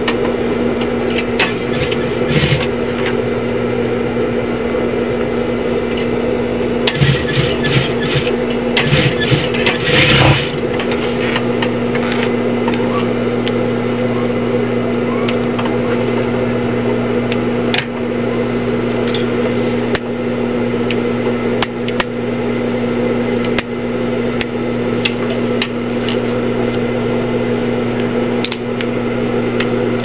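Industrial sewing machine's motor running with a steady hum. A few seconds of rapid clattering come between about 7 and 10 seconds in as the needle stitches through the bag fabric, with scattered clicks later.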